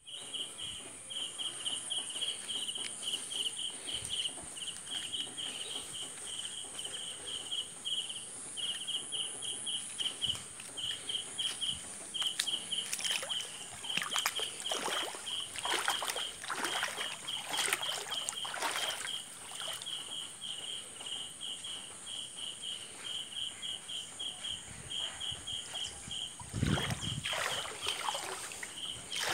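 Insects chirping steadily in a fast regular pulse over a continuous high buzz, with floodwater sloshing and splashing in clusters about halfway through and again near the end.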